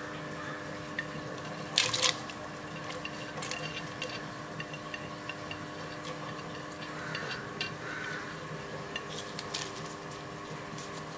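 Sliced red onions tipped off a china plate into coconut milk in a clay pot: a short wet splashing clatter about two seconds in, then a few faint scattered clicks, over a steady background hum.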